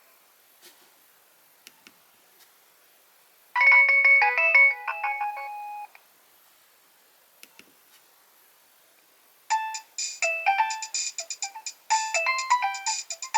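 Nokia 3100 mobile phone playing ringtones through its small speaker. A short melody of several notes at once plays about three and a half seconds in, and a fast, busy melody starts near the end. A few faint clicks sound in the quiet gaps.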